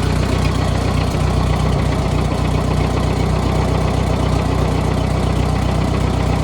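Minneapolis-Moline M602 tractor's carbureted gasoline engine idling steadily through a newly installed muffler.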